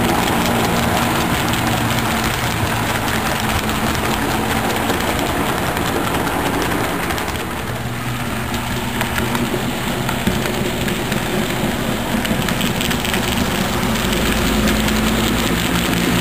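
HO scale model passenger train running on its track: a steady hum with the rolling rumble and clatter of the cars' wheels. It dips a little about halfway through and grows louder again near the end as the train comes back close.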